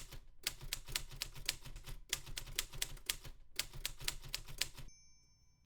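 Typewriter keys typing in three quick runs of sharp clacks with short pauses between them, stopping about five seconds in.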